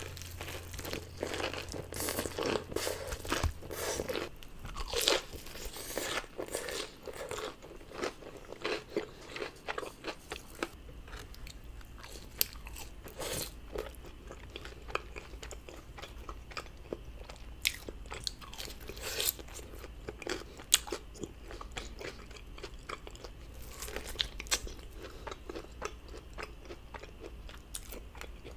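Close-miked crunching bites and chewing of crispy breaded fried chicken. Dense crunches fill the first few seconds, then slower chewing with a few sharp crunches scattered through the rest.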